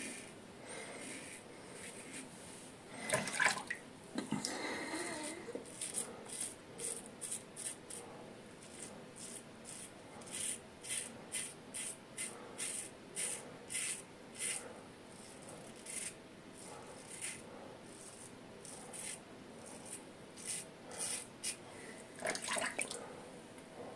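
Double-edge safety razor (Yaqi Excalibur with a Feather Pro Guard blade) scraping through lathered stubble in a quick series of short strokes. A louder rustle comes a few seconds in and another near the end.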